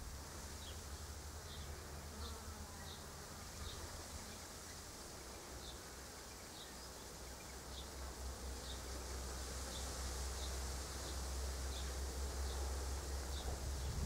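Outdoor ambience: a short, high chirp repeating about once a second over a steady low hum and hiss.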